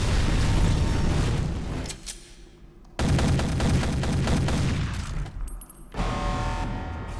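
Action-film sound effects: dense gunfire and booms mixed with music, in two loud stretches with a short lull between them about two seconds in, giving way to music near the end.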